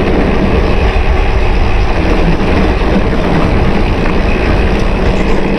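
Wind rushing over the microphone and tyre rumble from a mountain bike riding at speed downhill. A loud, steady noise that is heaviest in the low end.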